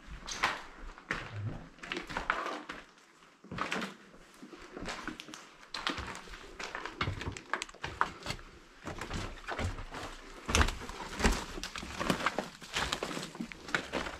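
Footsteps of people walking over a hard floor: irregular steps, scuffs and knocks, with one heavier knock a little past the middle.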